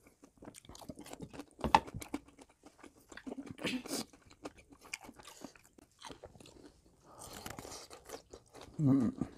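Crunching and chewing of crispy fried chicken drumsticks with a cornflour and breadcrumb coating, in irregular crackling bites, the loudest about a second and a half in.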